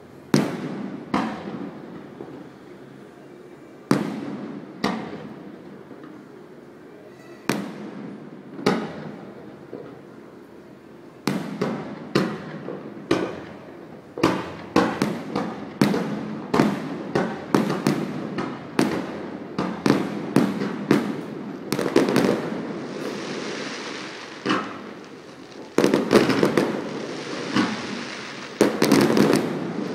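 Aerial firework shells bursting: scattered single bangs at first, then from about a third of the way in a rapid barrage of many bangs a second. Stretches of crackling hiss come in near the end.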